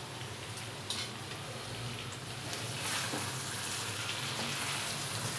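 Thick chicken and chana dal curry sizzling in a non-stick pan as a spoon stirs it, with a steady hiss and a couple of faint clicks of the spoon against the pan.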